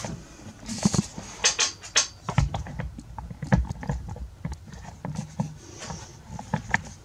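Irregular clicks, taps and knocks of hand tools being handled and worked against wood, a dozen or more at uneven spacing, some with a low thump.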